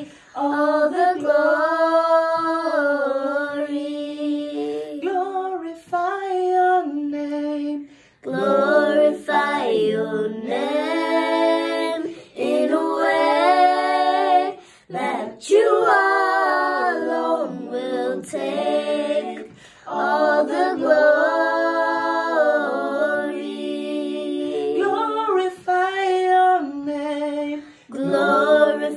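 A young girl singing a worship song unaccompanied, holding long notes that bend up and down, in phrases broken by short pauses for breath.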